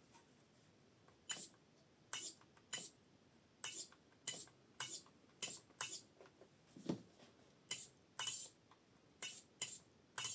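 A series of about fifteen short, sharp clicks and clinks of small hard objects being handled, coming irregularly about every half second to second, with quiet between them.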